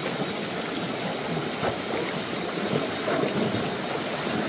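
Water flowing steadily, a continuous stream-like rush with some trickling.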